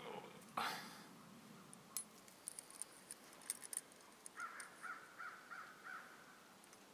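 A crunch about half a second in, then small metallic clicks and rattles of a small live trap being handled and set. Near the end a crow caws about five times in quick succession.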